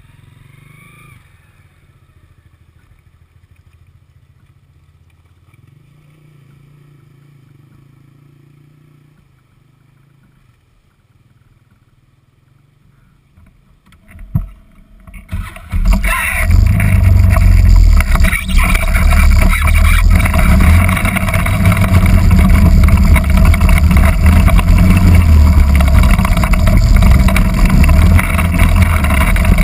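Off-road vehicle's engine idling quietly, then, about fourteen seconds in, a sudden loud rush of water and engine noise as the vehicle drives into the creek crossing and fords it.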